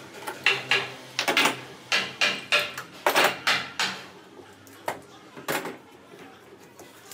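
Bar clamps being slid onto stacked curved plywood pieces and tightened: a run of sharp metal-and-wood clicks and knocks, thinning out after about four seconds.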